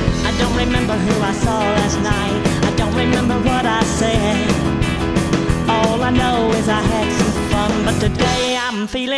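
A rock and roll band plays an instrumental stretch with piano and a steady beat. The low end drops out shortly before the end.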